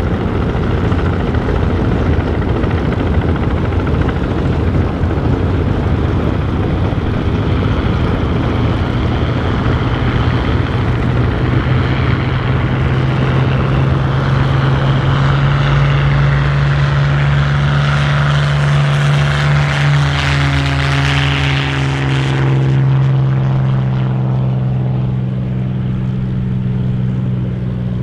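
Supermarine Spitfire Mk IXe's Rolls-Royce Merlin V12 engine and propeller at full takeoff power as the fighter accelerates down the runway and lifts off. A strong steady engine note builds, grows brighter as the plane goes by, then drops in pitch and loses its edge as it climbs away.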